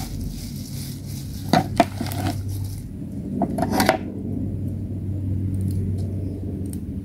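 A kitchen knife cutting through spinach stems on a wooden table, and leaves and utensils being handled in a plastic colander: a few sharp clicks and knocks, two about a second and a half in and a cluster near four seconds. Under them runs a steady low hum.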